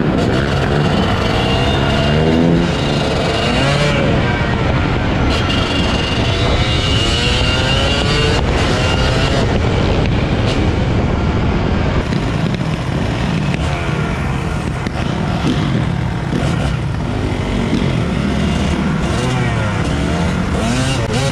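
Motorcycle engines running and revving while riding, their pitch rising and falling again and again over a steady rush of noise.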